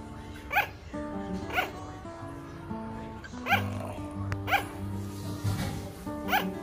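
Sugar glider barking: five short, sharp yaps like a small dog's, mostly about a second apart, which the owner takes as a call to play. Background music runs underneath.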